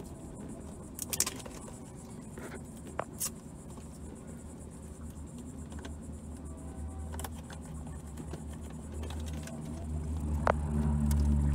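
Low engine rumble that builds up and gets louder over the last few seconds, with a few short clicks and taps from hands working the windshield shade against its bracket.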